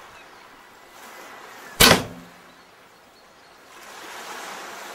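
A hunting bow being shot at a brown bear: one sharp snap of the string's release about two seconds in, with a short ringing after.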